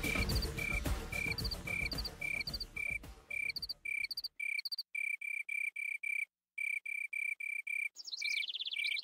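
Cricket chirps repeating evenly a few times a second, high and clear, over music that cuts out about four seconds in; after that the chirps come a little faster with nothing beneath them, and a higher trill joins near the end.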